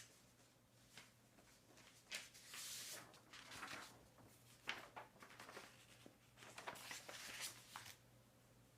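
Faint desk sounds of someone studying: scattered short bursts of scratching and rustling, like pen on paper and handled pages, with a few light clicks.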